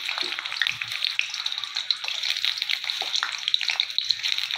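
Chicken box patties deep-frying in hot oil in a wok: a steady sizzle with many small crackling pops.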